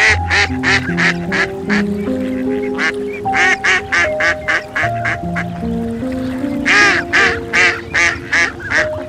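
Duck quacking in three rapid runs of short, loud quacks, over background music.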